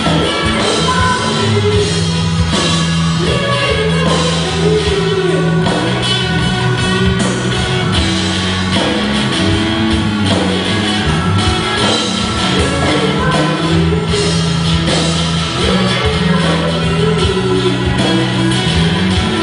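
A live rock band playing a song: a woman singing lead over electric guitar, bass, keyboard and drum kit.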